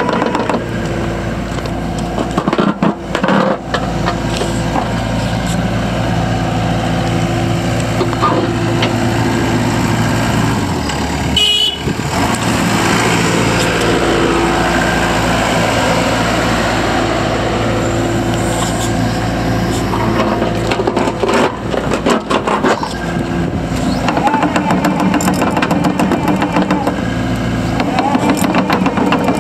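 Takeuchi TB290 compact excavator's diesel engine running steadily, with a brief change in its note about eleven seconds in.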